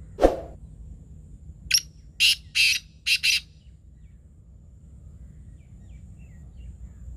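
Black francolin (kala teetar) calling: a sharp opening note falling in pitch, then a grating run of five harsh, rasping notes in quick succession about two to three seconds in.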